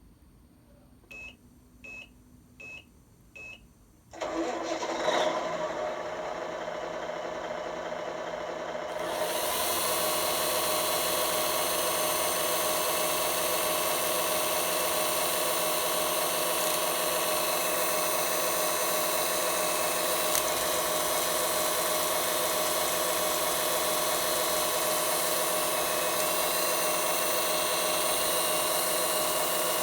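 A Tamiya RC truck gives four short electronic beeps. About four seconds in, its running sound starts, steps up louder at about nine seconds and then runs steadily at an even pitch.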